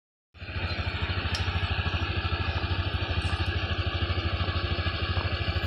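Motorcycle engine idling close by: a fast, even putter of about a dozen beats a second.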